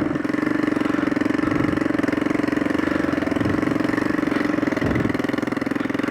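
Hartford VR 150 motorcycle engine running steadily while being ridden, with the irritating exhaust noise of a gasket that has come out at the front of the silencer.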